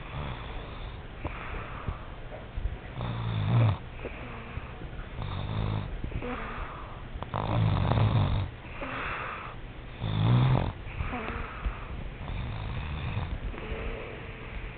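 Snoring: a rough snore on each breath, coming about every two and a half seconds. The snores are loudest through the middle and softer near the end.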